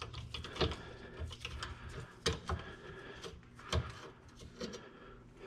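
Scattered light clicks and taps, with a few sharper knocks, of hand work with a Phillips screwdriver on the screws that hold a dishwasher in place.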